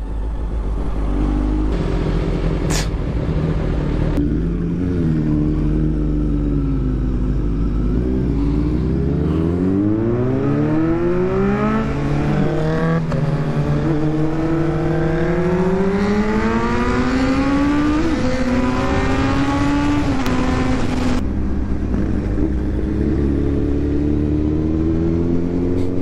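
Kawasaki inline-four sportbike engines heard from the rider's seat, accelerating hard through the gears. The engine pitch climbs and falls back at each upshift several times, under a steady rush of wind noise.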